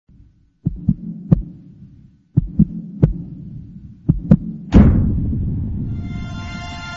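Intro sound effect: deep heartbeat-like thuds over a low hum, a double thud then a single one, three times over, ending in a big boom that rings out. Music with sustained notes swells in near the end.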